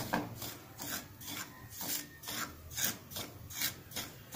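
Spatula scraping and stirring dry-roasted semolina in a pan: a grainy rasp in repeated strokes, about two a second, as the toasted rava is turned over.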